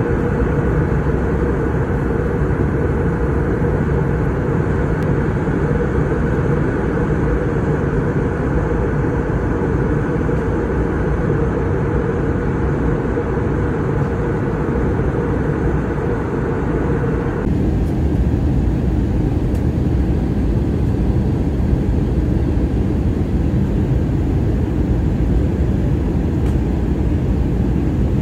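Steady cabin noise of an airliner in flight, engines and rushing air heard from inside the cabin as it descends. About two-thirds of the way through, the higher part of the noise drops away abruptly, leaving a lower rumble.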